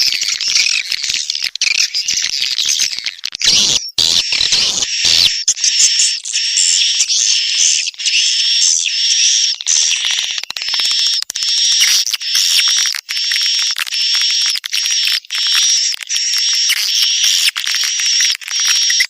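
Swiftlets twittering in a dense, unbroken stream of rapid high chirps: a swiftlet lure-call recording of the kind played to draw birds into a swiftlet house.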